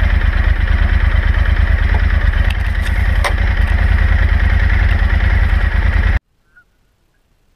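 Motorcycle engine running while the bike is ridden, heard from a camera mounted low on the bike, with heavy low rumble. A couple of sharp ticks come about two and a half and three seconds in. The sound cuts off abruptly about six seconds in, leaving near silence.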